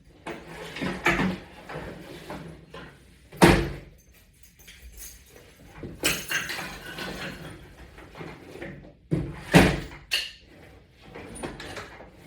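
Exercise gear being handled and packed into a shoulder bag: rustling of bag fabric and straps, with sharp knocks of equipment against each other about three and a half seconds in and twice near ten seconds.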